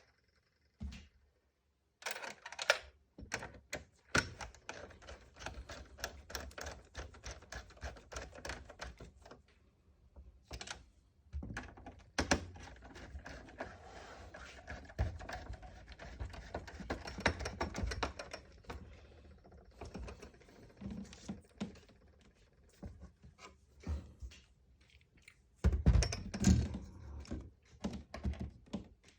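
Hands reassembling a PlayStation 3 console: a run of irregular clicks, taps and rattles as plastic and metal parts are handled and set in place, with louder, deeper knocks a few seconds before the end.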